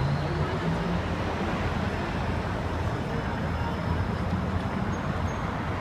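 Steady low rumble of traffic or engine noise, with faint indistinct voices in the first second.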